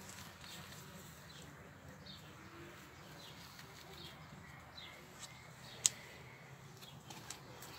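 Faint bird chirps, short falling notes repeating every second or so. A single sharp click comes near six seconds in, with a few smaller clicks near the end.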